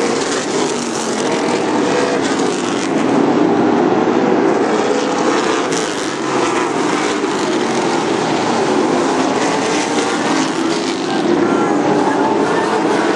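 A pack of late model stock cars' V8 engines running at racing speed around a short oval: a loud, steady engine drone whose pitch wavers as the cars come past.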